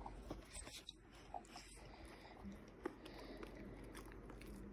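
Nearly quiet room with a few faint, scattered clicks and taps: a dog nosing a clear plastic treat-dispensing ball with treats inside.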